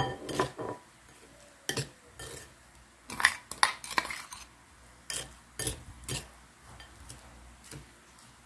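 Metal spoon clinking and scraping against a ceramic bowl while stirring brown sugar into grated sweet corn, in irregular knocks with short pauses between them.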